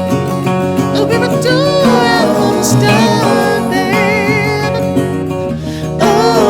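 Background music: an acoustic guitar song with a sung vocal line over a steady bass.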